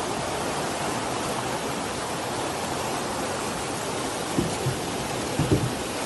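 Floodwater rushing down a street in heavy rain: a steady, even rushing noise, with a few dull low thumps between about four and five and a half seconds in.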